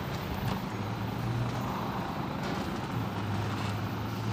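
Steady low mechanical hum like a running vehicle engine, with a couple of faint clicks as the plastic bumper edge and fender liner are handled.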